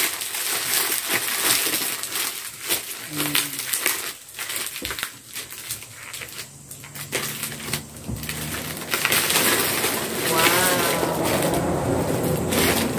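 Plastic mailer bag crinkling and rustling in irregular handfuls as it is torn open by hand, then clear plastic wrapping rustling as the wrapped sandals are pulled out.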